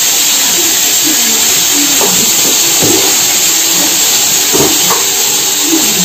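Potatoes frying in oil in a wok on a gas stove: a steady sizzle, with a few scrapes and knocks of the spatula against the pan around the middle.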